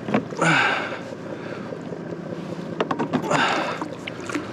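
A hooked yellowtail splashing at the surface beside a kayak as it is brought in, with a few sharp knocks against the boat or gear about three seconds in.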